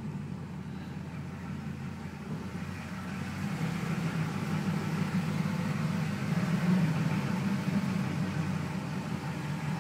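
LS1 V8 engine running rough with the car moving at low speed, the sound swelling about a third of the way in and easing off near the end. The owner takes the roughness for a misfire, possibly from a fouled spark plug.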